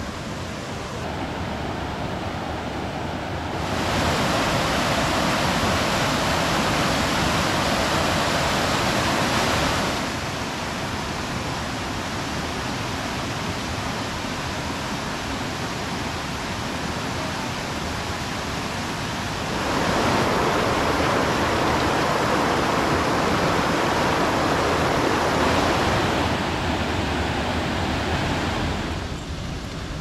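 Rushing water of a mountain stream and its small waterfalls, a steady wash that grows louder for two stretches, about four seconds in and again about twenty seconds in.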